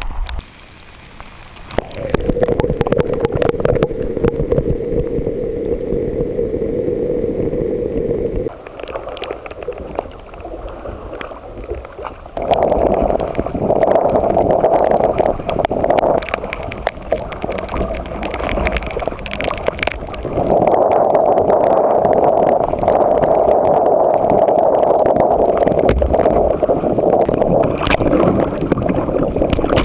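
Water sloshing and gurgling around a kayak hull in a windy rainstorm, with scattered sharp taps and wind noise on the microphone. The noise swells louder about twelve seconds in and again past the twenty-second mark.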